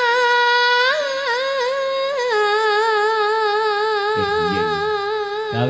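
A woman singing one long, ornamented held note in Javanese sindhen style, with small wavers and turns, stepping down to a lower note about two seconds in. A lower sound joins under the voice about four seconds in.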